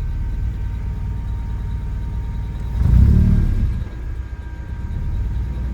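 Honda Civic engine running with a low exhaust rumble, its exhaust leaks freshly patched by welding; the sound swells louder for about a second around three seconds in, as with a blip of the throttle, then settles back.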